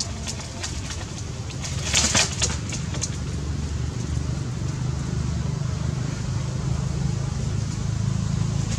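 A low, steady rumble, engine-like, that swells slightly after about two seconds, with a few short rustling noises about two to three seconds in.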